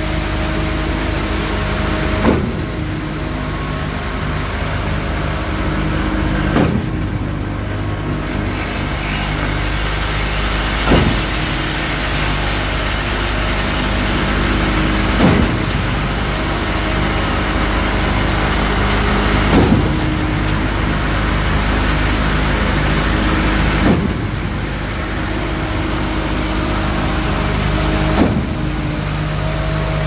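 Truck-mounted concrete boom pump running, its truck engine holding a steady note, with a sharp clunk about every four seconds as the pump shifts between piston strokes.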